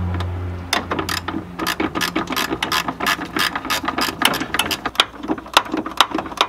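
Ratcheting gear wrench clicking in quick, uneven runs as it turns off the 12 mm nuts holding a Nissan 240SX clutch master cylinder to the firewall.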